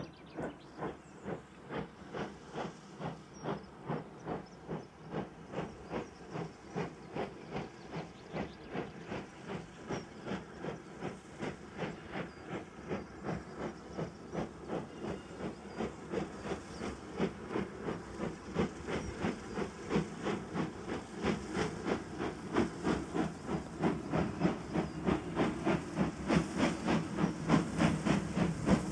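Caledonian Railway 812 class 0-6-0 steam locomotive No. 828 working steam as it approaches, its chimney exhaust beating evenly at about two and a half beats a second, growing steadily louder as it draws nearer.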